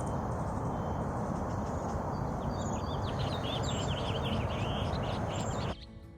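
Marsh ambience: many small birds chirping and calling over a steady rushing noise, the chirps thickest in the middle and second half, then the whole sound cuts off abruptly near the end and a quiet music passage begins.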